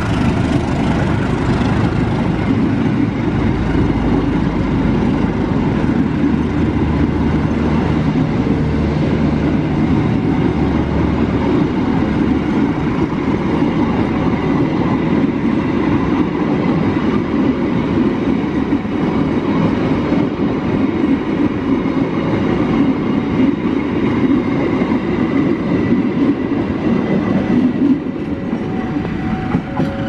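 Passenger train coaches rolling past close by on steel rails, a loud steady rumble that drops suddenly near the end.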